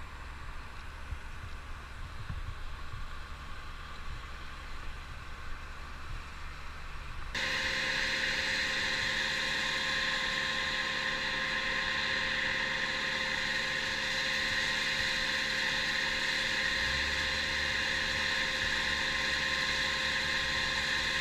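A motor running steadily at an even pitch. About seven seconds in, a low rumble with a few knocks cuts abruptly to a louder, higher and steadier engine note that holds to the end.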